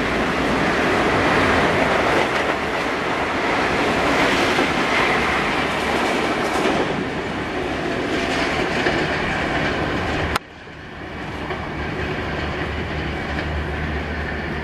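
Express passenger train passing at about 110 km/h, its coaches' wheels running loudly over the rails. About ten seconds in, a sharp click and the sound drops abruptly to a quieter, lower rumble.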